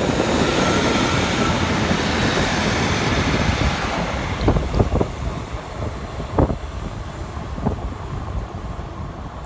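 Passenger train running past on the tracks, its noise easing off gradually, with a few sharp knocks about halfway through and again near the end.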